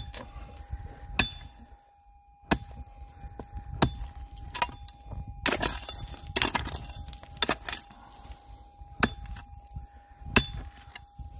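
A prospecting pick chopping into stony, gravelly ground, about ten sharp metal-on-rock strikes a second or so apart, digging out a metal detector target.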